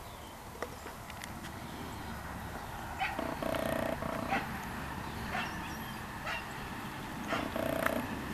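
Two drawn-out animal calls, one about three seconds in and one near the end, over steady outdoor background noise with a few light clicks and rustles.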